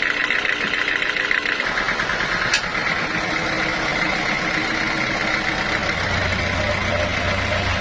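Sawmill machinery running steadily with a fast mechanical rattle. A deeper hum comes in after about a second and a half, and there is one sharp click about two and a half seconds in.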